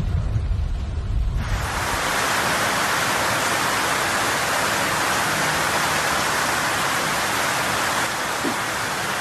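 Heavy rain pouring down on a flooded street, a dense steady hiss that comes in suddenly about a second and a half in. Before it there is a low rumble from inside a car driving through floodwater.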